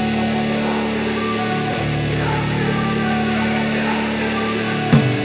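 Intro music: a steady held chord, with a sharp hit near the end as a beat comes in.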